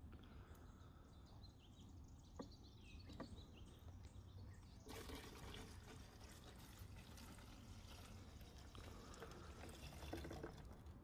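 Gasoline mixed with black powder being poured from a glass jar into a clear plastic fuel tank: a faint splashing trickle starts about five seconds in and runs until near the end. A couple of light clicks come before the pour starts.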